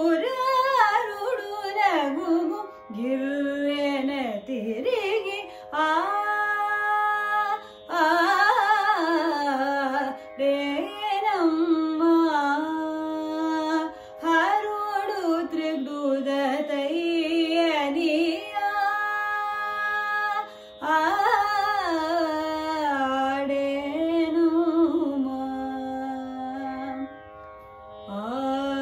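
A woman singing Carnatic classical vocal music, her voice sliding and oscillating between notes in phrases broken by short pauses for breath, over a steady held drone.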